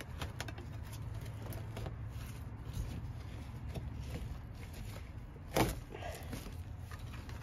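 Hand scraper working at old padding and mat on a rusty steel car floor pan: light scrapes and small clicks, with one louder knock about five and a half seconds in, over a steady low rumble.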